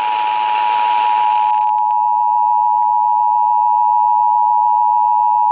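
Emergency Alert System attention signal: the steady two-tone alarm of 853 and 960 Hz sounding together, marking the start of a statewide Required Monthly Test. It is held unbroken, with a hiss of broadcast noise under it that fades out about a second and a half in.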